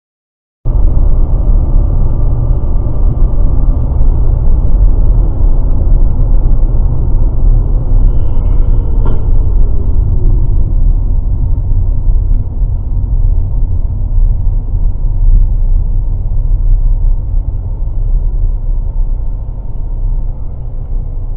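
Loud, steady low rumble of a car's engine and road noise recorded by a dashcam inside the moving car. It grows somewhat quieter near the end, with a faint click about nine seconds in.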